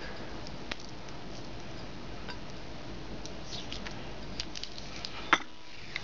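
Scattered small clicks and crackles of fingers picking at and peeling tape off a metal scooter handlebar, with one sharper click about five seconds in, over a steady hiss.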